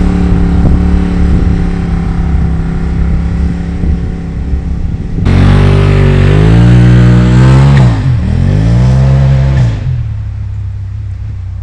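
Polaris RZR Turbo's turbocharged twin-cylinder engine idling through a newly fitted HMF QS Series dual exhaust, then revved twice from about five seconds in, the pitch rising, dipping and rising again before falling back to a steady idle.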